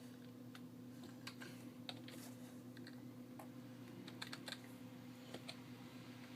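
Faint computer keyboard typing: scattered, irregular key clicks over a steady low hum.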